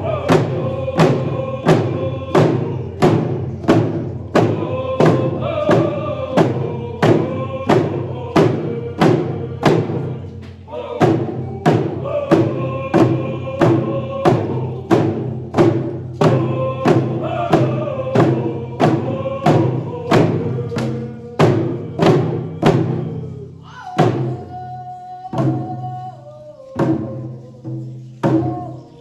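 A group of voices singing a song in unison to hand drums struck in a steady beat of about two strokes a second. Near the end the drumming thins to a few scattered strokes while the singing goes on.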